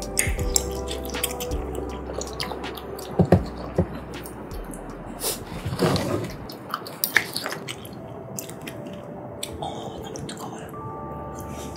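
Close-up wet eating sounds: chewing and smacking of tteokbokki rice cakes and chewy glass noodles, with sharp irregular clicks, some from chopsticks in the paper bowl. Soft background music plays underneath.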